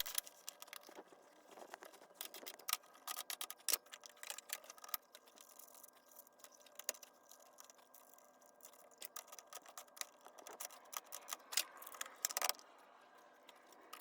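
Faint, scattered small clicks and light rattles, coming in irregular clusters.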